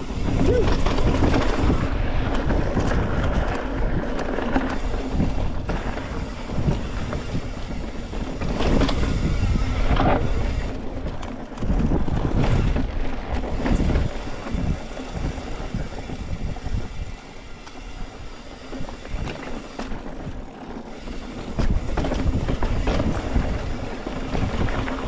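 Mountain bike riding fast over rocky trail: wind buffeting the microphone, with the tyres rumbling and the bike rattling and knocking over rock.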